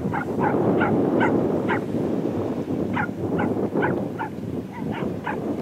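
An animal calling over and over in short, falling yelps, about two a second, over a steady rushing background.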